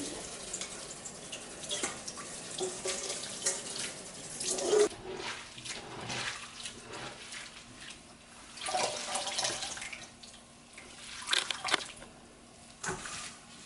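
Water from a kitchen tap running into a stainless steel sink, splashing unevenly as hands rinse and squeeze food under it.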